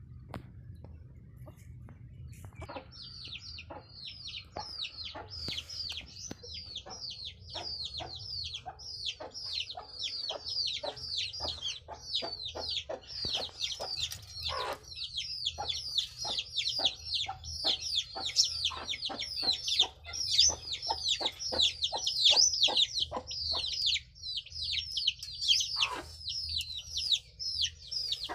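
Desi chickens calling: a dense run of short, high, falling peeps, several a second, starting a few seconds in, with some lower clucks among them. A steady low hum runs underneath.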